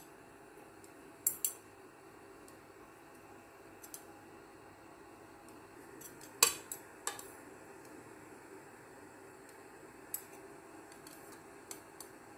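Chopsticks and a metal ladle clinking against a soup pot as the soup is stirred: a handful of scattered sharp clinks, the loudest about six seconds in, over a faint steady hum.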